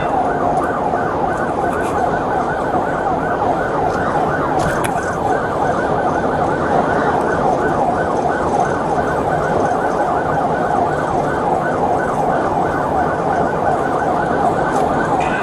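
Police car siren in a fast yelp, its pitch rising and falling over and over, heard from inside the moving patrol vehicle over steady road and engine noise at highway speed.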